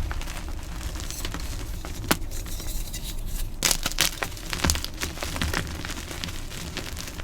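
Dyed gym chalk being crushed by hand: a steady, crunchy crackling of many small snaps, with a few sharper cracks about two seconds in and near the middle.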